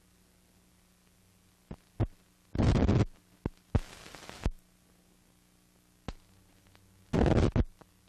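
Noise from an old film soundtrack running over blank leader: a steady low hum with scattered pops and clicks, two short loud bursts of crackle about two and a half seconds in and again near seven seconds, and a brief hiss around four seconds.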